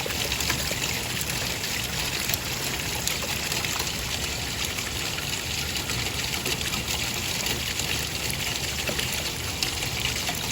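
Running water trickling and splashing steadily, an even, unbroken rush.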